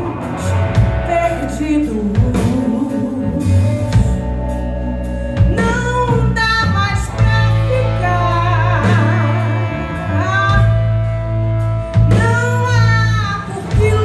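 Live rock band: a woman singing over electric guitars, electric bass and a drum kit, holding some notes with vibrato.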